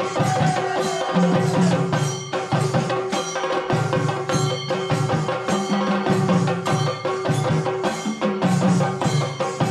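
Kunitha bhajane devotional dance music: chande drums beaten in a fast, driving rhythm with other percussion, over a steady held tone.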